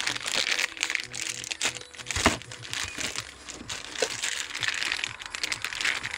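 Clear plastic bag wrapping a car part crinkling and rustling as it is handled and pulled from a cardboard box, with one sharp thump about two seconds in. Faint music plays underneath.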